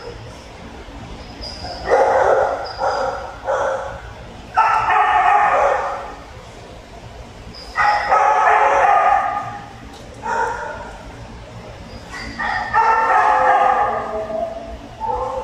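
Kennel dogs barking: short barks in quick runs, then several longer drawn-out calls about a second and a half each.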